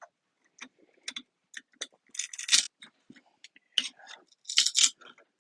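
Irregular crackling and snapping as a piece is pried and peeled off a Tesla Model S battery module, with denser crunchy bursts about halfway through and near the end.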